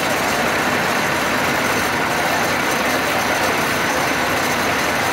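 Fire engine running steadily, a loud, even noise that does not change.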